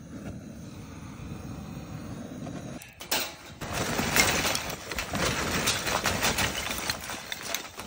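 A butane blowtorch on a gas canister runs with a steady rushing hiss for about three seconds. Then lumps of charcoal are tipped from a paper bag onto a steel barbecue grate, rustling and clattering irregularly.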